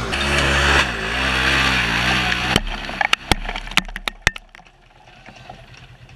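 Side-by-side UTV engine revving hard under load on a steep dirt hill climb, its pitch wavering up and down. About two and a half seconds in it cuts off abruptly. A string of sharp cracks follows, then a faint, low, evenly pulsing engine.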